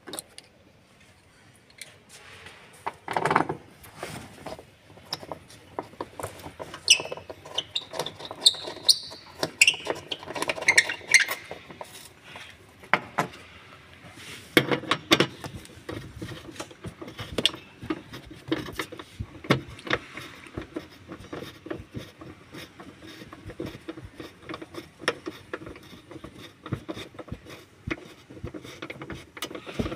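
Irregular metallic clicks and knocks of a socket wrench and steel seat-frame parts being handled while the seat bracket bolts are undone, with a louder knock about three seconds in. A few short, high squeaks come in the middle.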